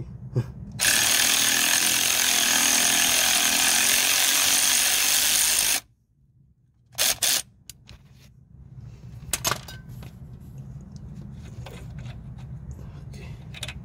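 Harbor Freight Earthquake impact wrench hammering on a rusted strut camber bolt in one steady run of about five seconds, then cutting off suddenly; two short blips follow about a second later.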